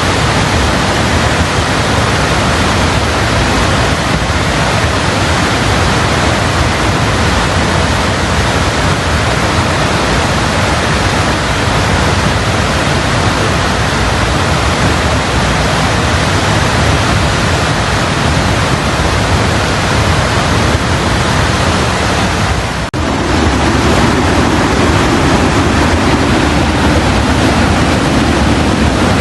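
Floodwater of a mountain river in spate after a cloudburst, rushing loudly and steadily. It breaks off briefly about 23 seconds in, then continues a little deeper.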